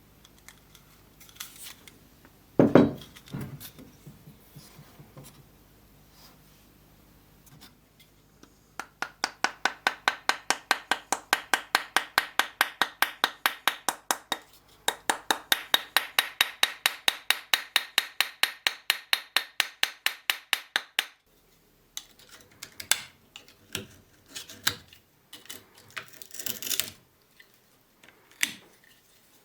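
Hand tool worked on a rusty hammer in quick, even strokes, about six a second, in two runs of several seconds each. A single heavy knock comes before them, and scattered clicks and scrapes follow.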